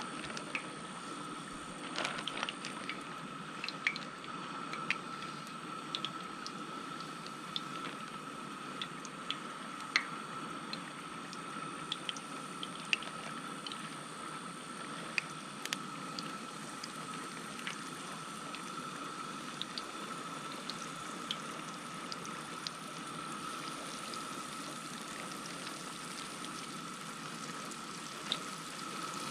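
Flour-dredged bowfin fillets frying in hot oil in a skillet on a propane camp stove: a steady sizzle with scattered pops and crackles, over a steady high tone.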